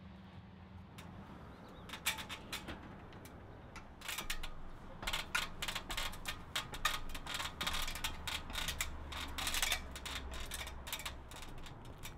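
Aluminium ladder being handled against a house wall: a run of metallic clicks, clanks and rattles starting about two seconds in and going on most of the way through.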